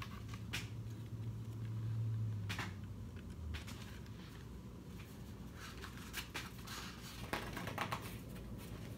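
Faint rustling and soft taps of a hardcover picture book being handled, with its pages riffled through near the end. A low hum stops a couple of seconds in.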